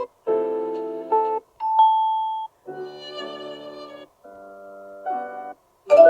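Samsung Galaxy Tab S7 FE ringtone previews played one after another: five short melodic snippets, each cut off after about a second, with brief silences between. One of them is a single held chime.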